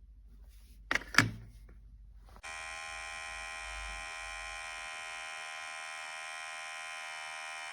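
Two sharp clicks about a second in, then a Hatteker electric hair clipper starts suddenly and runs with a steady, even buzz.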